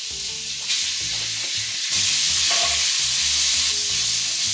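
Sliced pork shoulder sizzling as it hits a hot pan and is stirred with a wooden spoon. The sizzle grows louder in two steps, under a second in and about two seconds in, then holds steady.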